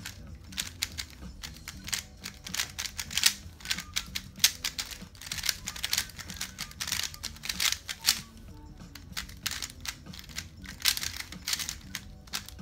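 Rapid clicking of a 3x3 speedcube being turned in a timed solve, in quick runs of turns with short pauses. The cube's pieces are freshly lubed with Angstrom Compound V and still breaking in. Background music plays underneath.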